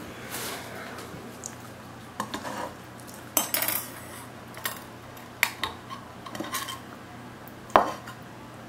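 Cutlery and a ceramic dinner plate clinking and knocking together in short, irregular clinks, with a little scraping, the loudest one near the end.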